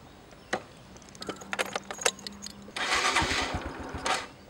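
Keys jingling and clicking at the motorcycle's ignition. About three seconds in, the engine is started, with a louder rush of cranking and low, evenly spaced firing pulses.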